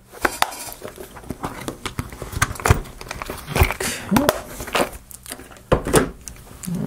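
Metal hand tools clinking and clattering as someone rummages through them for a screwdriver: irregular sharp knocks and rattles.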